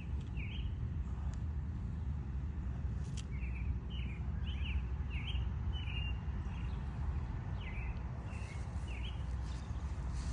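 Small birds chirping in short series of quick notes, over a steady low outdoor rumble.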